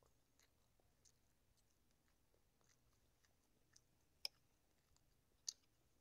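Faint sounds of a person eating fish and rice: quiet chewing with scattered soft mouth clicks, and two sharper clicks near the end.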